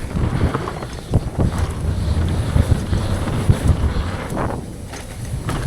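Wind rushing over a camera microphone during a fast downhill mountain bike descent, with a heavy rumble and scattered knocks and rattles from the bike over rough trail.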